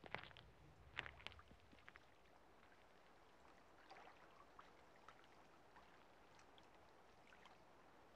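Faint footsteps on a concrete sidewalk, a few steps in the first two seconds, then a very faint wash of shallow water lapping at a shore.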